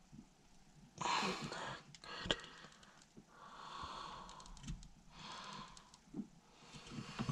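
A person breathing heavily close to the microphone, three or four drawn-out breaths, with a few small clicks of handling between them.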